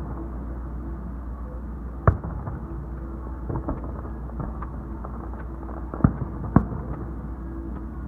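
Aerial fireworks bursting: a sharp bang about two seconds in and two more close together around six seconds, with a few smaller pops between, over a steady low rumble.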